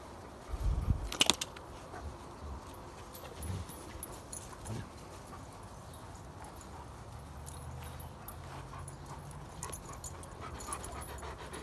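Irish setters and their puppies moving about on grass, with faint dog sounds; a thump and a sharp click about a second in.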